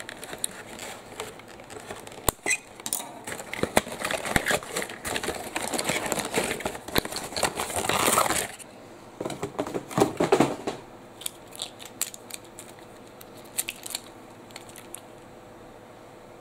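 Cardboard packaging scraping, rustling and crinkling as a wooden toy train is worked out of its box, with small clicks and knocks. The rubbing is loudest about eight seconds in, comes in another short burst soon after, and gives way to a few light taps near the end.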